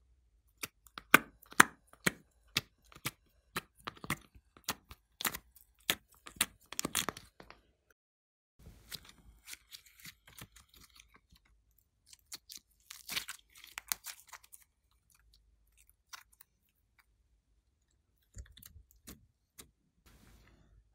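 Glossy slime clicking and popping, two or three sharp pops a second, as it is pressed out of a plastic mould. Then come softer squishing and crackling sounds as the slime is squeezed and stretched by hand.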